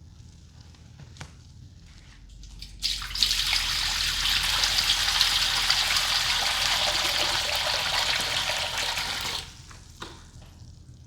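Water poured steadily into a container of soapy sponges for their final rinse, starting about three seconds in and cutting off sharply after about six seconds.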